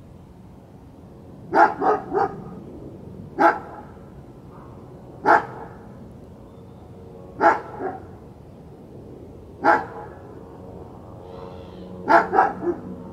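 A dog barking repeatedly: short sharp barks, a quick group of three, then single barks every two seconds or so, a double, and another quick group of three near the end.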